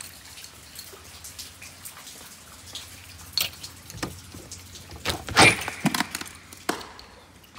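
Faint scattered ticks, like drips, then a door's brass lever handle being turned and its latch clicking as the door is opened, with the loudest clatter about five and a half seconds in.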